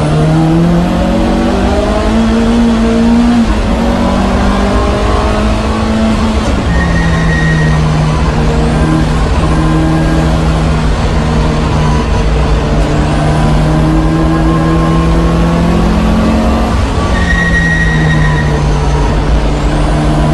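Lancia Delta HF Integrale's turbocharged four-cylinder engine heard from inside the cockpit under hard acceleration. Its pitch climbs through the revs and falls at two gear changes in the first six seconds, holds steady for about ten seconds, then drops again about 17 seconds in.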